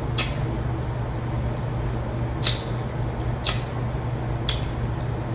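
Eating sounds from a close microphone: four short, sharp crackly clicks as tortilla chips and nachos are chewed, the last three about a second apart. Under them runs a steady low hum.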